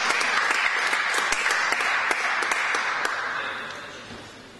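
Spectators applauding, the clapping dying away over the last second or so.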